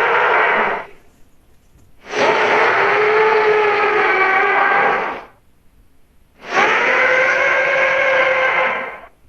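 Sea dragon monster calls made as sound effects: the tail of one call ending about a second in, then two long, pitched calls of about three seconds each, with short quiet gaps between.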